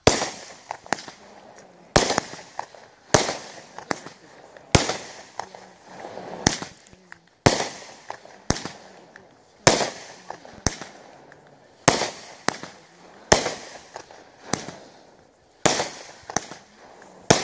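Orange Blossom multi-shot firework cake firing about fifteen shots, roughly one a second. Each is a sharp bang that trails off before the next.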